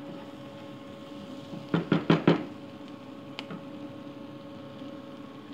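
Four quick knocks about two seconds in, then one lighter knock a second later: a wooden spatula rapped on the frying pan. A steady hum runs underneath.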